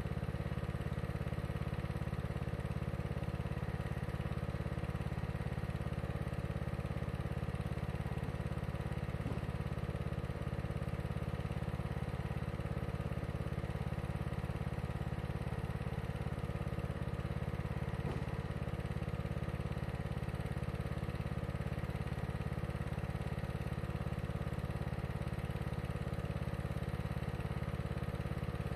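Engine of a TroyBilt Bronco lawn tractor, a 19 hp Kohler Courage, running steadily while the tractor stands still.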